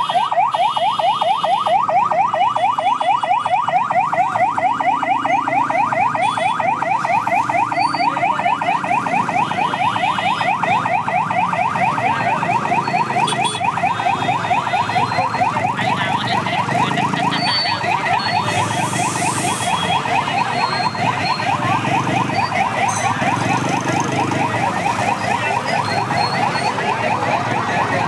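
Mobile crane's electronic warning siren sounding continuously while it lifts a load: a loud, fast warble of rising sweeps repeated several times a second, with a faint low rumble beneath.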